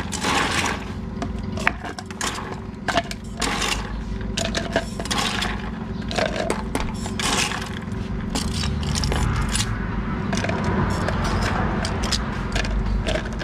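Clinking and scraping of glasses, ice and utensils as a drink and food are served: many short, sharp clinks over a steady low hum.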